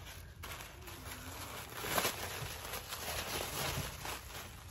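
Tissue paper rustling and crinkling as a gift is unwrapped by hand, with a louder crackle about two seconds in.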